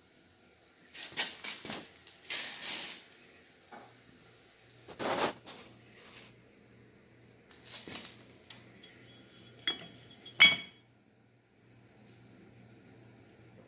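Steel pieces being handled in a forge shop: a series of short scrapes and knocks, then one sharp, ringing metal clink about ten seconds in, followed by faint background hum.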